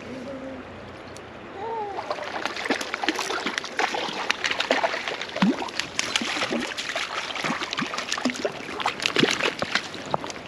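Creek water running, then from about two seconds in, continuous irregular splashing: a hooked trout thrashing at the surface as it is brought in.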